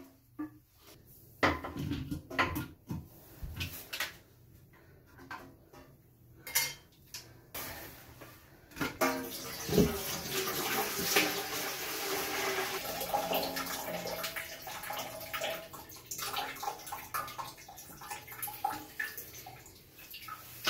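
Plastic clicks and knocks as an old Kohler silent fill valve is worked loose in a toilet tank. About nine seconds in, water starts running and splashing into a bucket beneath the tank for several seconds, then fades into more clatter as the valve is lifted out.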